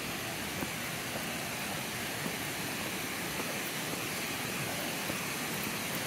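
Steady rushing of a waterfall, an even hiss with no rise or fall, with a couple of faint footsteps on the dirt trail.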